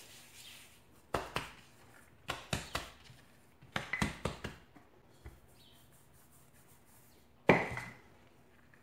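Hands pressing and patting a ball of leftover biscuit dough on a work surface: short clusters of slaps and knocks, with one louder thump near the end.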